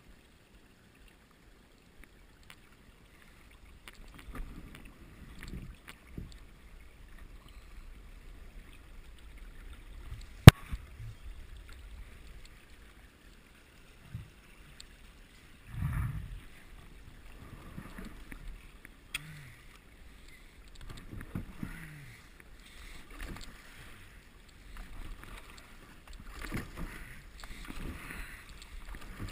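Kayak paddle strokes in a shallow, rocky creek: irregular splashing swells of water, starting after a few seconds of near silence, with one sharp, very loud knock about ten seconds in.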